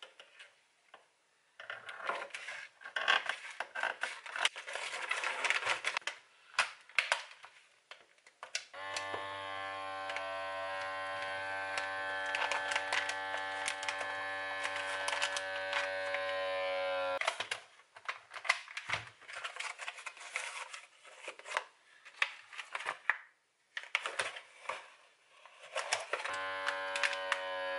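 MORITZ countertop vacuum sealer's pump running with a steady, even hum for about eight seconds as it draws the air out of a bag around a cabbage wedge. Before it come scissors snipping and plastic bag rustling, and the pump hum starts again near the end.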